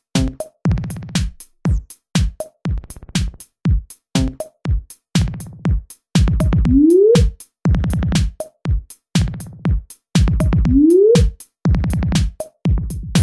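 Minimal techno: dry drum-machine clicks and short, choppy bass stabs in a fast, busy rhythm. A short synth note sweeps upward twice, about four seconds apart.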